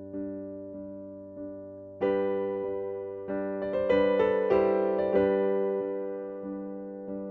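Slow, gentle electric piano music: soft repeated notes, then fuller sustained chords struck about two seconds in, each note ringing and fading.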